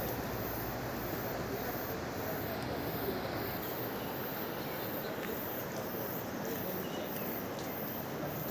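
Steady outdoor background noise, an even hiss with no single clear source, and a few faint high chirps.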